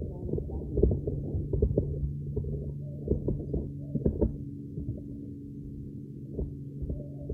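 Muffled bumps and rubbing right against a covered phone microphone, with a steady low hum coming in about halfway through.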